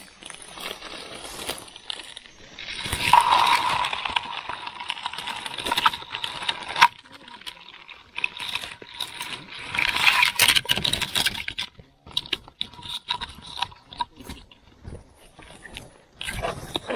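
Dry grass, leaves and twigs rustling and crackling as hands dig through swamp-edge brush, in two loud spells about three and ten seconds in.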